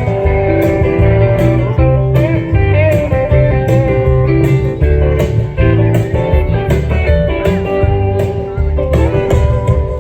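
A live band playing an instrumental break led by guitar, with bending lead notes over a steady, pulsing bass line.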